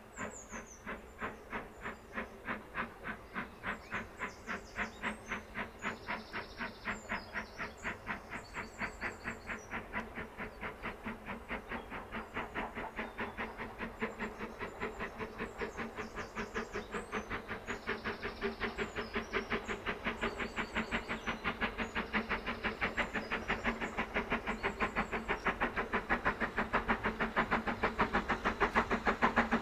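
BR Standard Class 9F steam locomotive working hard as it pulls away and comes closer, its chimney exhaust beating out a regular chuff that quickens from about two or three beats a second to about four or five. The beats grow steadily louder throughout.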